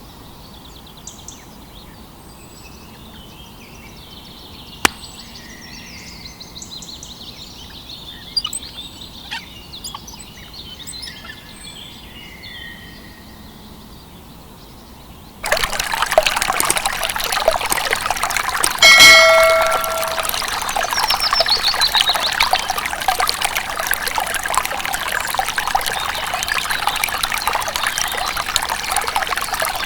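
Water pouring and trickling starts abruptly about halfway through and keeps running steadily. Faint bird chirps come before it, and a brief high squeak sounds shortly after the water starts.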